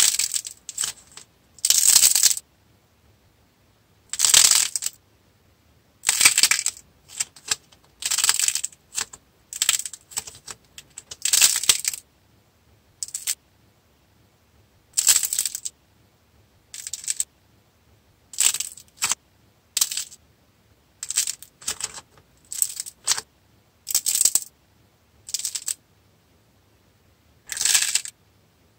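A clay sculpture head being squeezed and crushed by hand, its hardened surface cracking and crackling in irregular bursts of about a second or less, with quiet pauses between squeezes.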